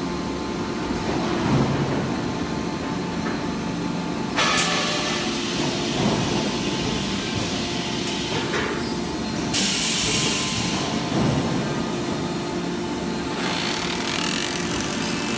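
Hydraulic wheel rim expanding machine running, its pump giving a steady low hum. Loud hissing comes and goes over it, starting about four seconds in, again near ten seconds, and near the end.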